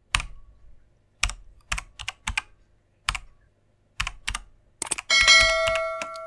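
Keyboard typing sound effect: single key clicks at irregular intervals, about eight over four seconds. About five seconds in, a bright bell-like ding of several tones rings out and fades.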